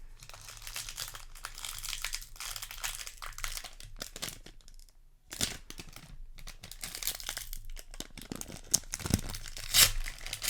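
Plastic wrapping crinkling and tearing as a Magic: The Gathering collector booster is opened by hand. The crackling pauses briefly midway and is sharpest near the end.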